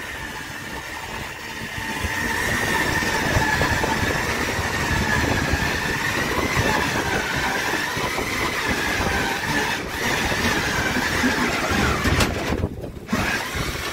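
Rope running up over a pulley as a cray pot is hauled in, squealing with a high, slightly wavering whine that stops about twelve seconds in, over a rushing noise of water and wind.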